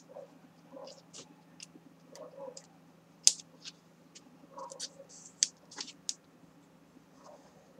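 Hands handling and pressing a cardboard album cover on a cutting mat: scattered light clicks and taps with short soft rustles of the card, over a faint steady low hum.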